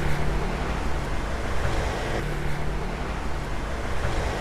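Steady road traffic noise with a low, even hum underneath.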